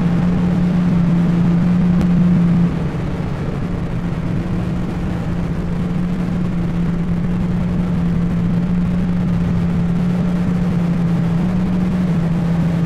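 Live noise music: a loud, dense electronic drone with a steady low hum at its core, dropping a little in level about two and a half seconds in.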